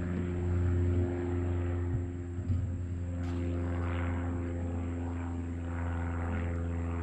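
Engine of a JLG lift running steadily with an even, droning hum, with a few light knocks a couple of seconds in.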